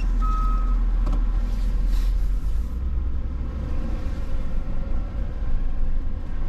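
Truck engine running with a low rumble, with a single reversing-alarm beep just after the start; the rumble lightens about two and a half seconds in.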